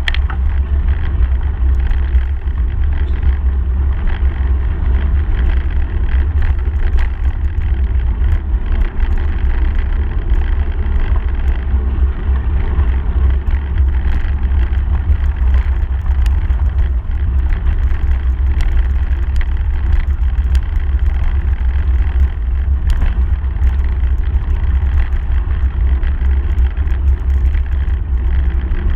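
Steady rumble of wind buffeting the microphone, over the hiss and crunch of bicycle tyres rolling fast on a gravel track, with frequent small clicks and rattles from the bike and stones.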